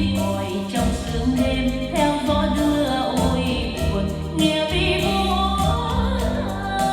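Music: a slow Vietnamese ballad with a female voice over band accompaniment.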